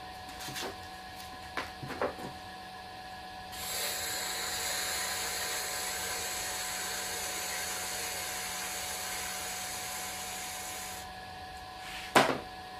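Wooden tool scraping against a clay pour-over dripper turning on a pottery wheel: an even hiss lasting about seven seconds, over the steady whine of the wheel's motor. A few light knocks come before the scraping, and a sharper knock near the end.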